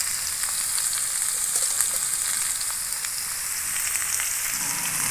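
Chunks of parboiled green jackfruit and potato frying in hot mustard oil in a wok: a steady sizzle with many small crackles.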